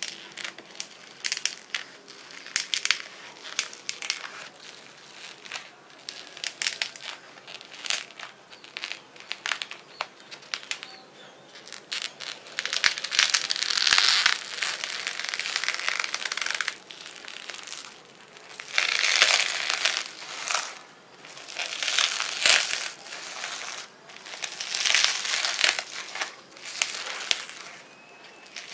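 Fluffy slime being squeezed and stretched by hand, its trapped air bubbles crackling and popping. Quick crackles come first, then longer, louder bouts of crackling as it is pressed and pulled.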